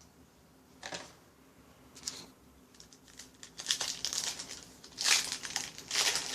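Foil wrapper of a trading card pack crinkling as it is torn open and handled: a couple of brief rustles, then denser, louder crinkling in the second half.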